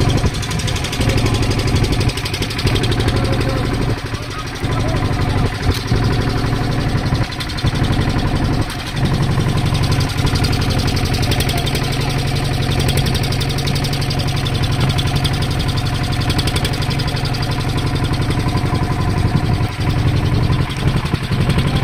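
Fishing boat's engine running steadily with a rapid, even beat, along with water splashing against the hull.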